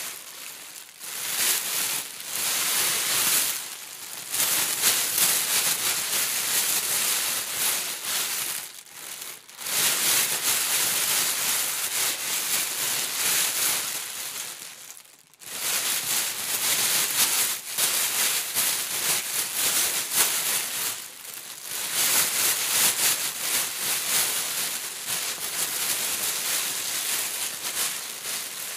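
Hands raking and digging through a bed of small white foam beads, a dense, continuous rustling hiss. It breaks off briefly twice, about a third of the way through and again about halfway. Mixed in are crinkles from the plastic-wrapped stick snacks being handled.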